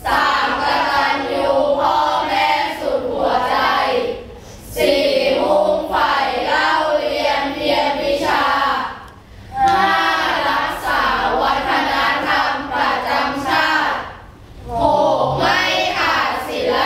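A group of children singing together in unison, in four phrases of about four to five seconds, each separated by a short pause for breath.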